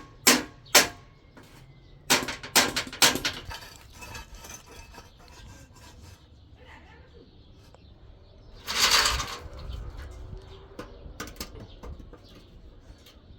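A series of sharp knocks and clatters: two near the start and a quick run of several around two to three seconds in, followed about nine seconds in by a short burst of scraping or rushing noise.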